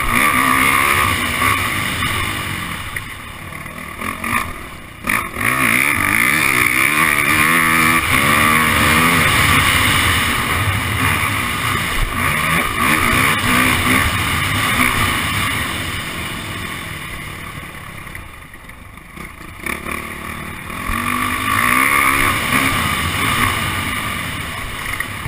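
Yamaha motocross bike's engine revving up and down under hard riding, heard close from the onboard camera. The throttle is cut briefly about five seconds in and again later on.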